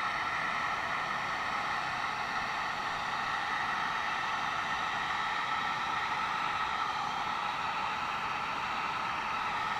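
Steady rush of air from a drying blower played over a freshly sprayed coat on a steering wheel, with an even hiss that holds constant throughout.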